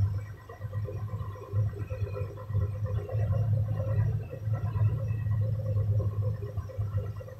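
Truck diesel engine idling, heard from inside the cab as a low rumble that swells and fades, while its air compressor builds up the air-brake pressure.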